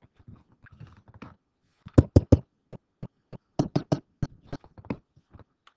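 A series of sharp clicks and taps: three loud ones in quick succession about two seconds in, then a run of about six more over the next three seconds, with fainter ticks around them.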